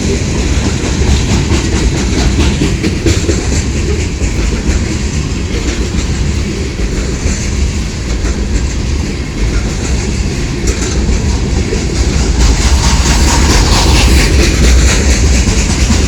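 CSX train rolling past, its wheels clacking steadily over the rail joints over a low rumble, growing louder near the end.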